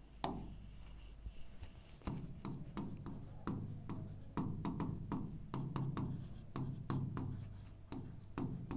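Stylus tapping and scraping on an interactive smart board's screen during handwriting. One sharp tap comes just after the start, then from about two seconds in a steady run of short knocks, a few a second, as letters are written.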